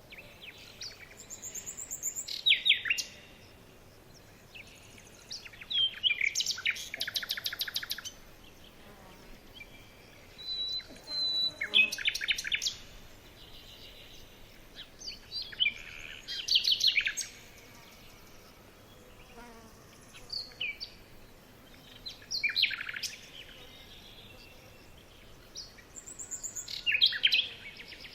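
A songbird singing short, high phrases every few seconds, some with rapid trills and quick falling whistles.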